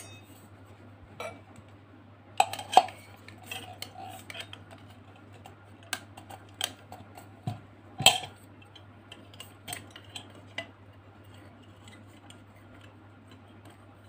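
Irregular clicks, taps and clinks of hard parts being handled: a porcelain lamp holder, the metal head of a desk lamp and a screwdriver. The sharpest clinks come as a pair a little over two seconds in and once about eight seconds in.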